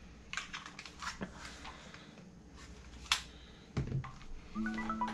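Scattered light clicks and taps of a plastic top-handle chainsaw being handled, then a heavier thump about four seconds in as it is set down on a wooden table. Electronic music tones start just before the end.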